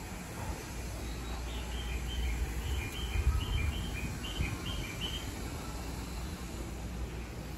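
A bird calling: a run of short, high two-note phrases, the notes alternating between a higher and a lower pitch for about three and a half seconds, over a steady low outdoor rumble.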